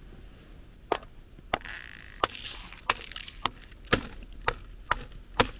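Trekking pole tip tapping and cracking thin ice over wet rock: a run of sharp taps, a little under two a second, starting about a second in.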